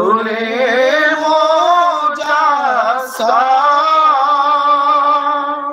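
A man singing a naat, an Islamic devotional song in praise of the Prophet, unaccompanied, drawing out long wavering melismatic notes with a brief break about three seconds in.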